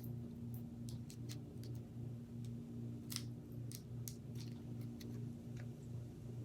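Faint, scattered light clicks of a small metal driveshaft yoke being handled and fitted onto the D-shaped shaft of an RC crawler, over a steady low hum that pulses evenly.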